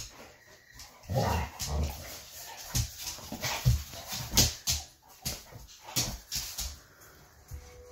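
Pit bull whining and making play noises while play-fighting with a cat, among many sharp clicks and thumps from the scuffle.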